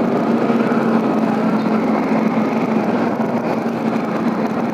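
Motorcycle engine running at a steady pitch while riding, over a dense rushing noise from the road and wind.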